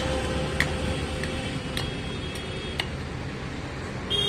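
Outdoor background noise: a low steady rumble with light sharp ticks about every half second for the first three seconds.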